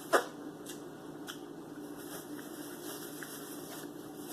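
A person chewing a mouthful of taco close to the microphone: one sharp wet smack just after the start, then soft, scattered chewing clicks over a faint steady hum.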